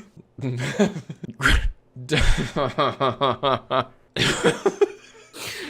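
A man's voice laughing and making strange vocal noises in short bits spliced one after another, broken by sudden silent gaps. Near the middle comes a rapid run of short pulsing laugh-like sounds.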